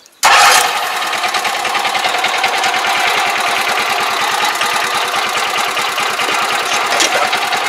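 Small engine of a crawler farm machine running steadily with a fast, even clatter.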